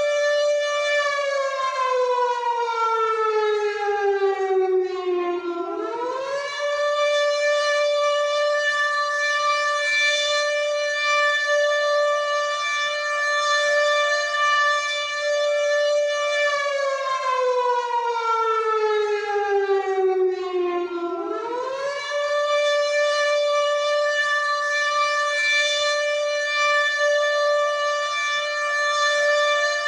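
WW2-style air raid siren wailing: a long held tone that slowly sinks in pitch over several seconds, then climbs quickly back and holds again. This happens twice.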